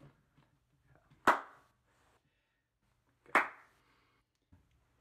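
Two sharp single hand claps about two seconds apart.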